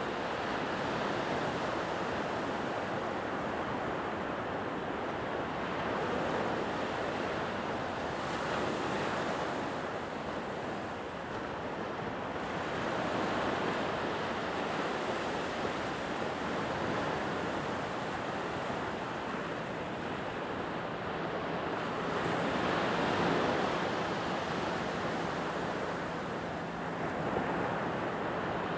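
Small Gulf surf breaking and washing up a sandy beach, a steady wash that swells and eases with each wave.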